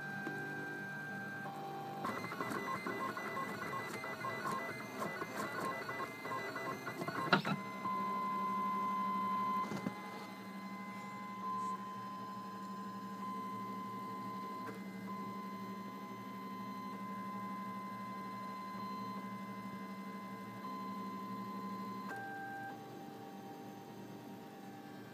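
Homebuilt Ultimaker 3D printer running a print: its stepper motors whine at steady pitches as the print head moves. A busy stretch of quick, changing stepping moves comes early, ending in a sharp click about seven seconds in. Then the motors settle into a long steady two-tone whine that shifts pitch near the end.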